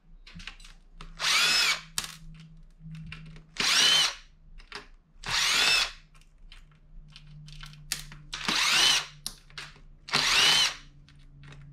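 Cordless drill-driver backing screws out of a POS terminal's metal housing: five short bursts of motor whine, each spinning up and winding back down, with light clicks of handling between them.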